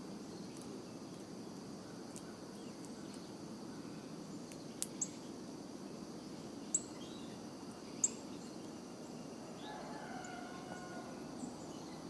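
Backyard ambience: a steady insect drone, a few sharp ticks between about five and eight seconds in, and a short distant rooster crow near the end.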